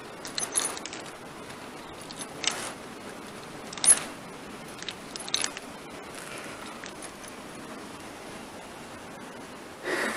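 Footsteps in soft toe shoes walking along a riveted steel railroad-bridge girder, with short light clinks about every second or so over a steady faint hiss.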